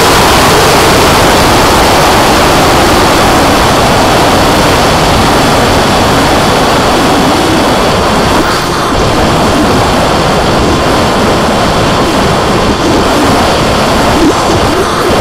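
Wind rushing and buffeting across an onboard camera on a Skyfun RC foam plane in flight, with the electric motor and propeller running underneath. The noise is loud and dense throughout, easing a little about eight seconds in.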